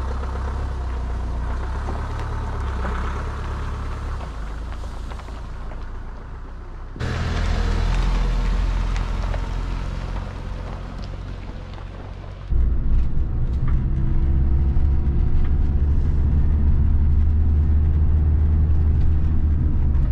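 Camper van's engine running as the van drives off along a gravel lane, louder and then fading as it moves away. About twelve seconds in, it becomes the steady engine drone heard inside the cab while driving, slowly rising in pitch.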